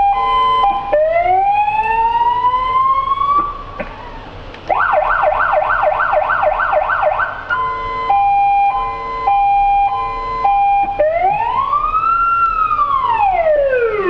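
Electronic siren of a road-rail railway rescue truck switched through its tones by hand: a hi-lo two-tone, then a rising wail, a fast yelp of about three sweeps a second, the two-tone again, and near the end a slow wail rising and falling.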